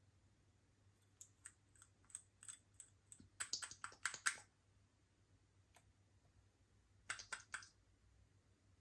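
Slime being worked, giving scattered sharp sticky clicks and pops, with a dense crackling run of clicks about three and a half seconds in and another short run near the end.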